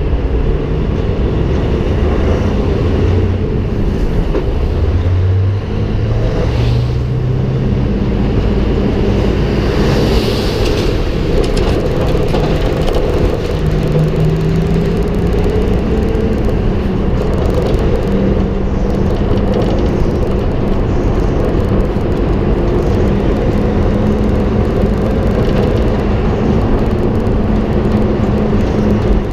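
Volvo FH16 700 truck's 16-litre straight-six diesel running under way, heard from outside beside the truck together with tyre and road noise. The engine note climbs a few seconds in and again about halfway through, and there is a short hiss about ten seconds in.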